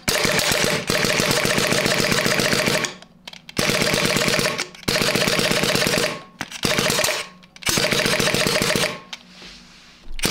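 Nova N1 mechanical paintball marker fired in rapid strings: five bursts of fast, sharp pops, each about one to three seconds long, with short pauses between them.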